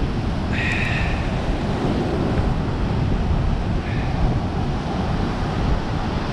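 Wind buffeting the microphone over the wash of surf running up the sand, a steady rumbling hiss. A short higher-pitched sound rises above it about half a second in, and faintly again near four seconds.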